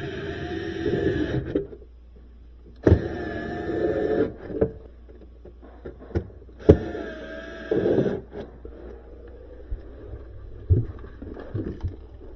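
Cordless drill/driver running in three short bursts, about one and a half seconds each, as screws are driven in during reassembly, followed by a few light clicks and knocks of handled parts.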